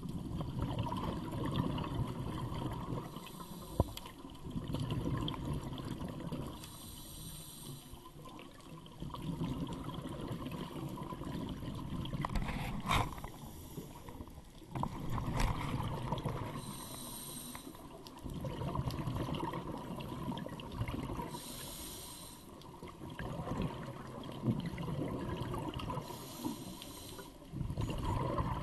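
Scuba diver breathing through a regulator, underwater: a short hissing inhale followed by a longer rumble of exhaled bubbles, repeating about every four seconds.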